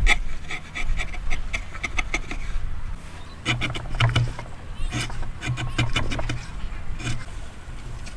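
Hand woodworking on timber joints: irregular taps, knocks and clicks of hand tools working wood, denser in the middle stretch.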